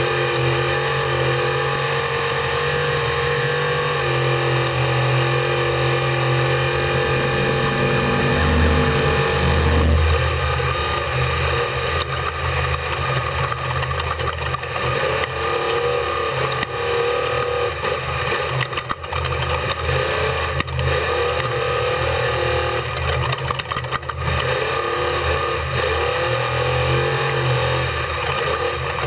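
Ford unlimited desert race truck's engine running hard at speed, heard from on board. The engine note is steady, changes pitch and is loudest about ten seconds in, then dips briefly a few times.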